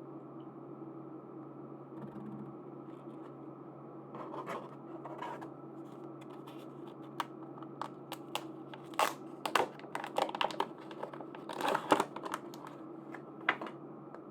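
Packaging being handled and opened by hand: crinkling, tearing and sharp little clicks in irregular flurries, busiest about two-thirds of the way through.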